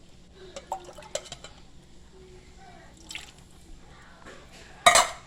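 Wet squishing and small clicks of a utensil working thick tomato sauce in a pot, with one short, loud clatter near the end.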